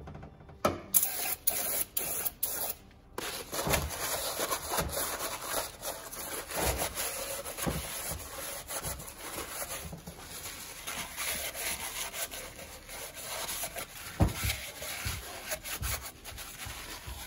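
A rag scrubbing and wiping inside the combustion chambers of a 243-casting aluminum LS cylinder head, a steady scratchy rubbing that clears out metal debris and dirty residue. A few sharp knocks come about a second in, and another near the end.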